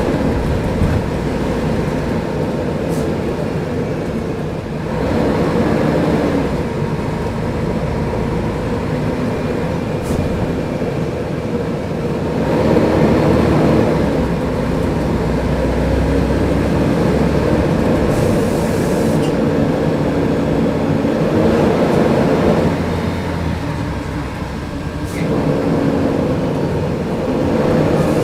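Mercedes-Benz O500UDA bus's diesel engine running under way, its pitch climbing and dropping back several times as the bus accelerates and changes gear.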